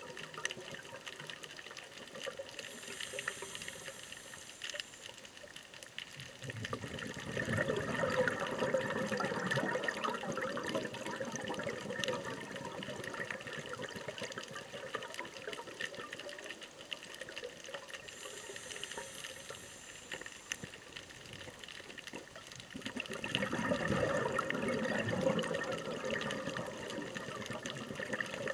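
Scuba diver's regulator breathing underwater: a brief high hiss of inhalation, then several seconds of exhaled bubbles gurgling, the cycle heard twice.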